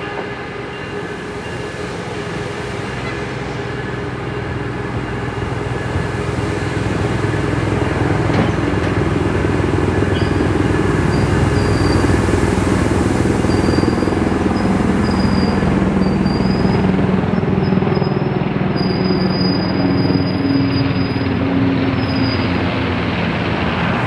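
A train running past on the rails, its rumble growing louder over the first ten seconds or so and then holding steady. Thin high wheel squeals come and go through the second half.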